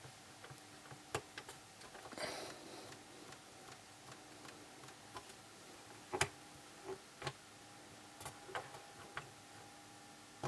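Buttons on an ITT Synchrotronic 109 digital radio alarm clock being pressed to set the time and alarm: a scattering of faint, irregular clicks, a few close together, some a second or more apart.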